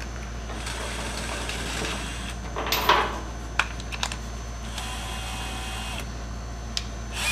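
Metal tool work on a steam locomotive boiler: scraping and a loud metal clank about three seconds in, then a couple of sharp clicks. A power tool's motor whirrs steadily for about a second around the fifth second, over a constant low hum.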